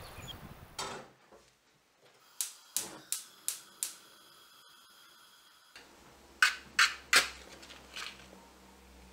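Gas stove's spark igniter clicking five times, about three a second, until the burner under the kettle lights. Then a match struck three times against its box, loud sharp strikes, with a fainter scrape after.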